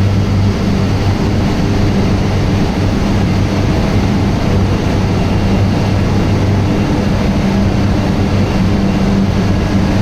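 Sugarcane milling plant machinery running steadily: a loud, even industrial din with a constant low hum.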